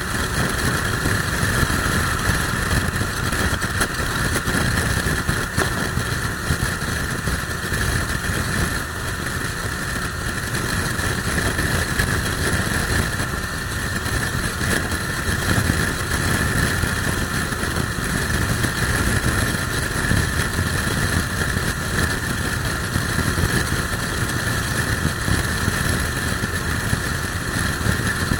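Motorcycle travelling at steady expressway speed, its engine running under the rush of wind on the microphone. The noise swells and dips unevenly with a strong crosswind.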